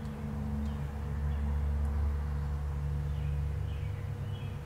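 Steady low hum, like a motor or fan running, with a few faint, short, high bird chirps in the second half.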